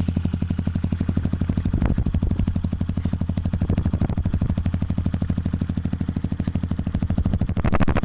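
Yamaha WR155's 155 cc single-cylinder engine idling through a Norifumi aftermarket exhaust pipe, a steady, even thump of exhaust pulses.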